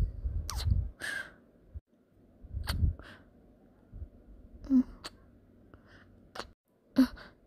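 Close-miked kissing: a string of short wet lip smacks with breathy puffs into the microphone and a few small voiced gasps, from one voice actor.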